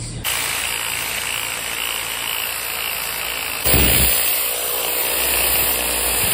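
Angle grinder fitted with a sanding disc on a backing pad, running with a steady whine as it sands the bare wood of an old tree-trunk slab. It starts suddenly just after the beginning and gets louder a little past halfway.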